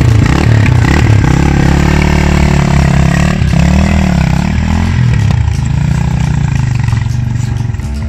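Motorcycle engine revving up and down under load as the bike struggles through deep, sticky mud, its rear tyre packed with mud. The engine note swells and sags several times.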